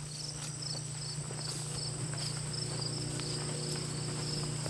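Insects calling in a late-summer meadow: a steady high-pitched trill with a pulsed cricket chirp a little lower, repeating a few times a second. A low steady hum runs underneath.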